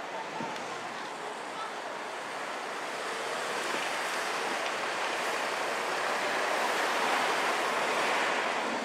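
Modern double-decker bus driving past at low speed: a rushing engine and tyre noise that grows louder as the bus draws alongside, loudest near the end.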